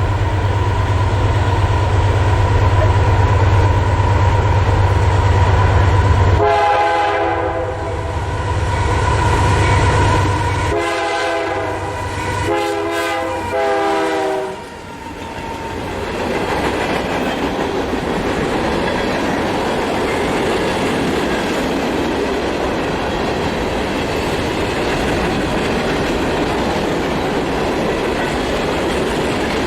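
A train approaching with a heavy rumble, then sounding a multi-note horn in two long blasts, the second broken briefly. The train then runs past with a steady rumble and wheel clatter.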